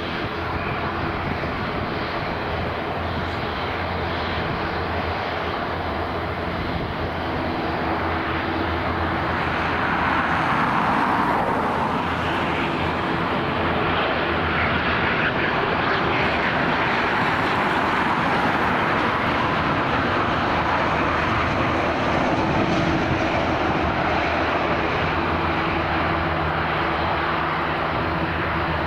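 Twin rear-mounted jet engines of a Gulfstream business jet on landing approach: a steady rush with an engine hum underneath. It grows louder about ten seconds in as the jet comes close, then holds steady through the flare and touchdown.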